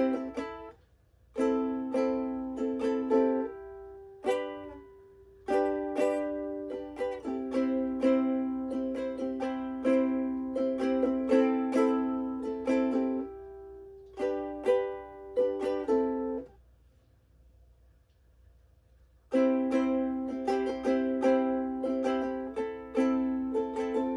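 Ukulele strummed in chord riffs, phrase after phrase with sharp attacks, breaking off briefly about a second in and for about three seconds in the second half.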